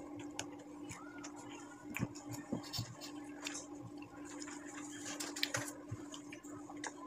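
Eating noises at a table: a metal spoon clinking and tapping against a glass and cup in scattered light clicks, over a steady low hum.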